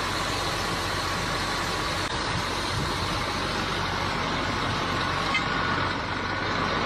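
Steady, loud machinery noise, like a heavy vehicle's engine running, with no change in pace.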